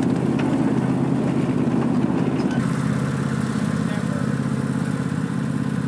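Small engine of a miniature-railway track car running steadily, a little quieter from about two and a half seconds in.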